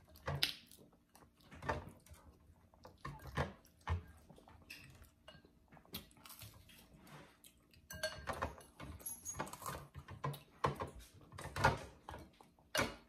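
Spoons clinking and scraping against glass soup bowls at irregular moments, with mouth sounds of eating soup and bread.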